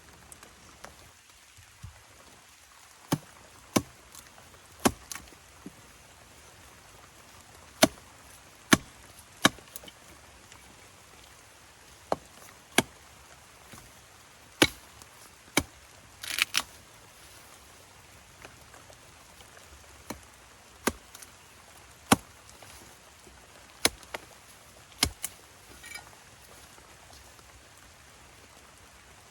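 Chopping into wood with a blade: single sharp strokes at an uneven pace, some in quick pairs or threes with pauses between, and a short rasping stroke about halfway through. A steady hiss runs underneath.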